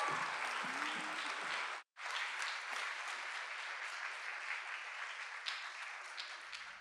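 Audience applauding, slowly dying down, with a brief cut-out about two seconds in.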